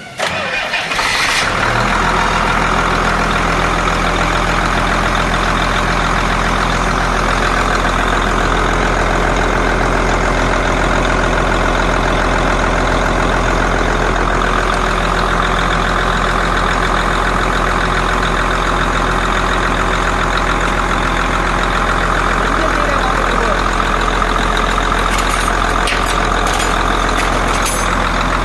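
Komatsu PC300-7 excavator's 6CT diesel engine cranked by the starter, catching after about a second and a half, then idling steadily. A few sharp clicks near the end.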